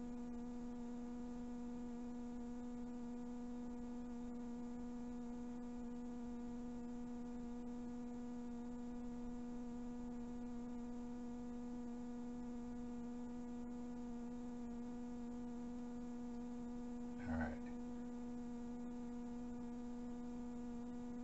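Steady electrical hum from the powered O-gauge toy train layout, an even buzzing tone that never changes. A brief short noise comes about seventeen seconds in.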